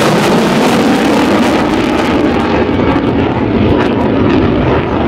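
F/A-18 Super Hornet jet fighter flying past with a loud, steady roar from its twin turbofans, easing off slightly near the end.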